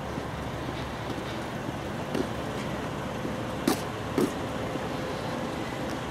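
Steady engine hum with a constant tone running through it, broken by a few short sharp knocks about two, three and a half and four seconds in.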